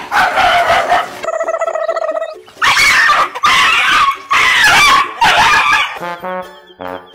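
Frightened dogs yelping and barking in loud bursts, startled by a figure in a lion costume.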